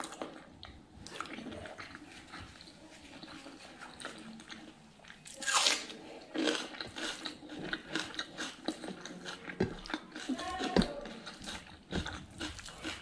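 Close-miked chewing of pork innards curry and rice: wet smacking and crunching mouth sounds, with many short clicks. There is a louder burst about five and a half seconds in.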